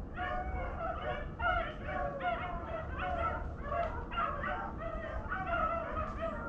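A pack of beagles baying in chase, many voices overlapping without a break: the hounds are running a swamp rabbit's track.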